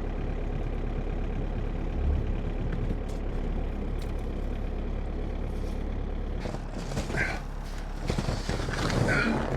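Diesel wheel loader engine idling steadily, warming up. In the last few seconds, rustling noises and two short squeaks come in over it.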